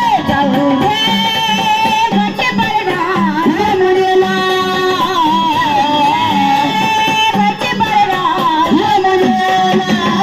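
Marathi gondhal devotional folk music: a gliding, ornamented melody over a steady hand-drum beat.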